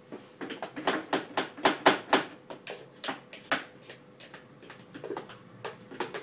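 Dishes and kitchen utensils being handled, clattering in quick irregular clicks and knocks that are busiest for the first three and a half seconds and then come more sparsely.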